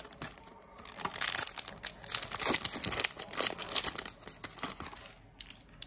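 Foil booster pack wrapper being torn open and crinkled in the hands: a dense crackling of thin plastic foil that starts about a second in and dies down near the end.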